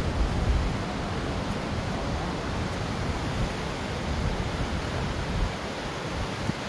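Steady rushing outdoor noise, with an uneven low rumble underneath.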